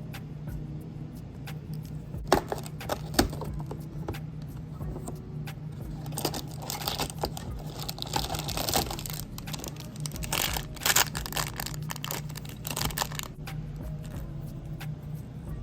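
Lego pieces being handled, with a few sharp plastic clicks, then a small plastic parts bag crinkling and tearing as it is opened, among many light clicks.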